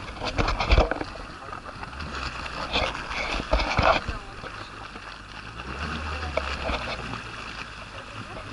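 Jet ski engine running at low speed, a low steady hum that swells for a second or so past the middle, with water washing against the hull. A few loud bumps on the microphone in the first second.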